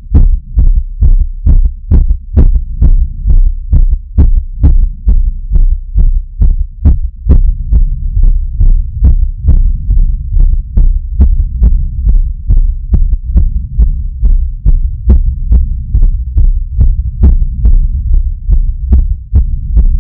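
Human heart beating steadily, picked up close to the chest: a regular run of short thumps every few tenths of a second over a constant low rumble, with the pulse raised after climbing stairs.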